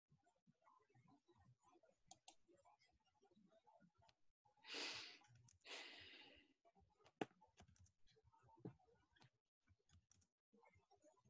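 Near silence broken by faint, scattered computer keyboard and mouse clicks, and two short breathy puffs on the microphone about halfway through.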